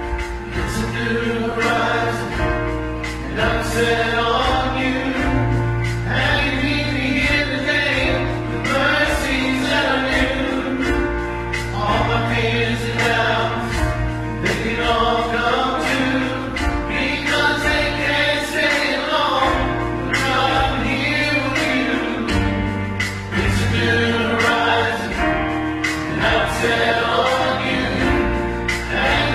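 Church worship team of men and women singing a worship song together over a live band, with a steady bass line under the voices.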